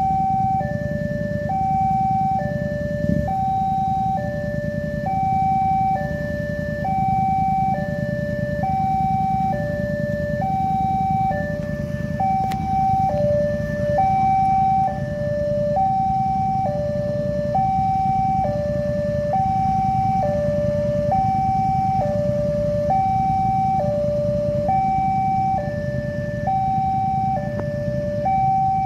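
Railway level-crossing warning alarm sounding: an electronic two-tone chime alternating steadily between a higher and a lower note, over a steady low rumble of waiting motorcycle traffic.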